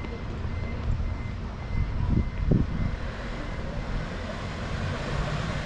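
City street ambience: a steady low rumble of passing vehicle traffic, with two short, louder low bumps a little over two seconds in.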